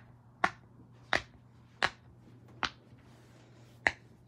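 Silicone pop-it fidget toy's bubbles being pushed in one at a time by fingers: about six sharp, loud pops at an uneven pace, with a pause before the last one.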